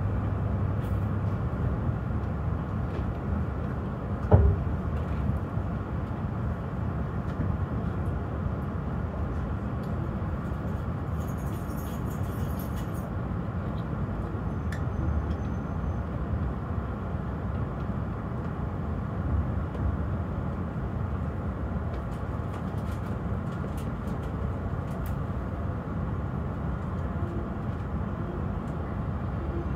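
E5 series Shinkansen train running at reduced speed, a steady low rumble of the running gear on the track. There is one sharp thump about four seconds in.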